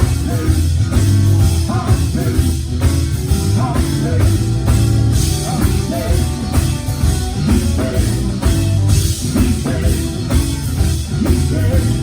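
Live gospel quartet band playing: drum kit, bass and electric guitar with heavy, steady bass.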